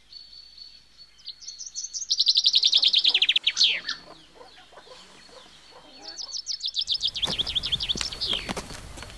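A bird singing two runs of rapid, high chirped notes, each falling in pitch, with footsteps on a dirt path underneath the second run near the end.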